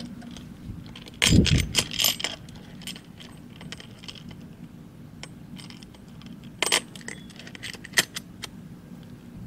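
Small metal hardware (square bolts and a quick-release bracket) clinking and rattling against an aluminium awning mounting rail as it is fitted by hand. There is a burst of clattering with a dull knock about a second in, then scattered light ticks and two sharp clinks near the end.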